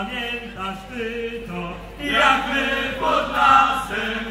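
Polish folk ensemble singing in chorus in the Kraków regional style. About halfway through, the singing gets louder and fuller.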